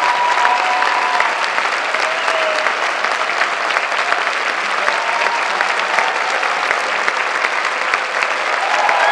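Concert-hall audience applauding steadily, a dense patter of clapping, with a few voices calling out over it near the start and again near the end.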